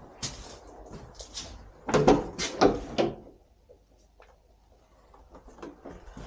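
A run of knocks and scrapes, loudest about two to three seconds in, then near quiet with a few faint ticks.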